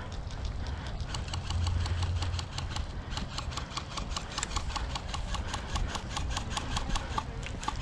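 Electric airsoft rifle firing a rapid string of single shots, about six a second, with a brief pause a couple of seconds in.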